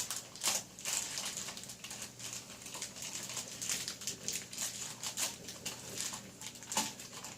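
Toy packaging being handled: irregular crinkling and rustling with many small clicks and taps.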